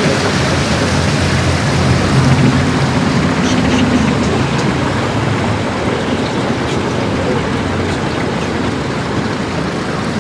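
Charter boat's motor running under heavy wind and water noise. Its low hum is strongest for the first few seconds and eases off after about four seconds, as if the boat is throttling back.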